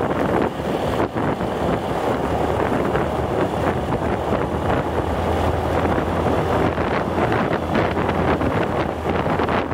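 Steady wind noise rushing over the microphone of a moving open vehicle, with a low, even engine hum beneath.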